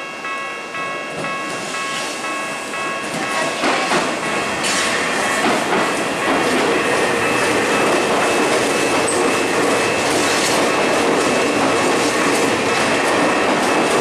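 Level-crossing alarm ringing in rapid repeated tones, stopping about four seconds in. Then a Tokyu 5050-series electric train rolls past close by, its wheels rumbling and clattering over the rail joints.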